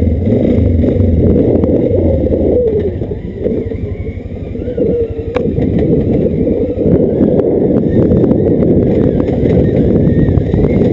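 ATV engine running as the quad drives off along a rough dirt trail, easing off for a moment a few seconds in and then pulling harder again, with scattered knocks and rattles from the ride.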